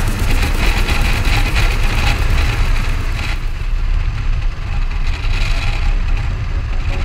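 Wind rumble and engine noise on board a moving BMW F650CS Scarver motorcycle, its single-cylinder engine running under the wind. The hiss in the sound eases about halfway through.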